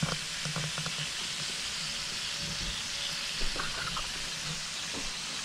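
Whole lobsters sizzling on a hot George Foreman electric grill plate: a steady frying hiss with a few faint crackles.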